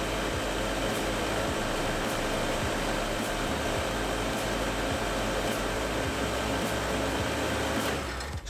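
Fluid-bed granulator-dryer running, its blower making a steady air rush with a hum. The sound cuts off shortly before the end.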